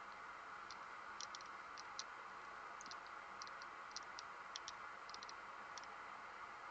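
Faint scattered ticks and small crackles over a steady low hiss, some coming in quick little clusters, as a soldering iron tip is drawn back and forth along fluxed connector pins and the flux bubbles away on the joints.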